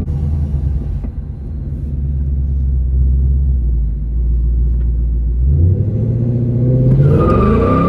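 Ford Mustang GT's 5.0 V8 through a Borla S-Type cat-back exhaust, heard from inside the cabin: a steady low exhaust rumble while cruising. About five and a half seconds in, the revs jump and then climb as the car accelerates, and a higher whine joins near the end.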